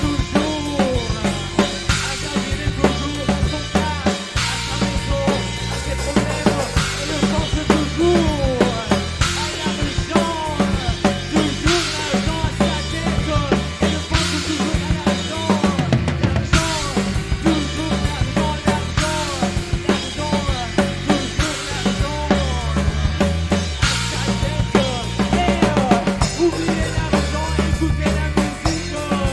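Instrumental passage of a rock band playing with no vocals: a drum kit keeps a steady beat under a bass line, while a guitar plays lead lines full of bent, gliding notes.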